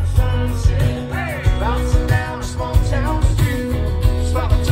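Country band playing live: a steady drum beat, about two kicks a second, under bass and guitar.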